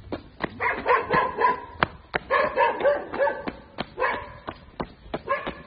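A dog barking in short, quick runs of several barks, over steady footsteps crunching on gravel, about three steps a second.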